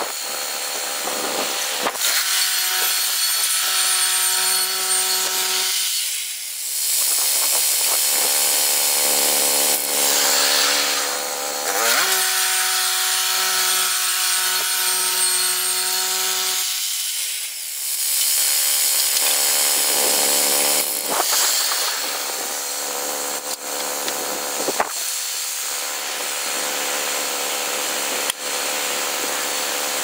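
Portable bandsaw sawmill's gas engine running steadily as the band blade cuts through a pine log. Twice the engine note sags briefly and then recovers.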